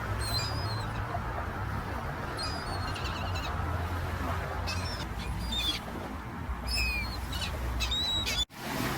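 Scattered short, high bird calls, about seven of them, over a steady low rush of outdoor background noise. The sound cuts out for a moment near the end.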